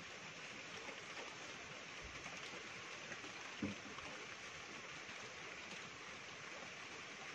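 Steady hiss of outdoor night ambience, with one short low knock about three and a half seconds in.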